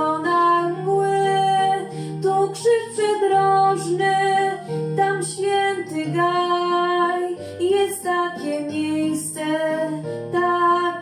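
A teenage girl singing a Polish song into a handheld microphone over an instrumental accompaniment, her voice carrying sustained, wavering notes.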